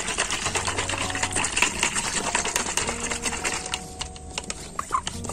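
Plastic hand pressure sprayer bottle of water and fertilizer crystals being shaken hard to dissolve the fertilizer: fast rattling and sloshing that eases off about three and a half seconds in, then a few clicks of the plastic pump top being handled.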